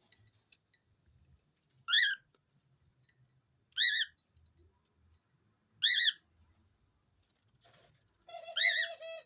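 Pet cockatiel calling: four short, loud, warbling chirps about two seconds apart, the last one joined by a lower, steady tone.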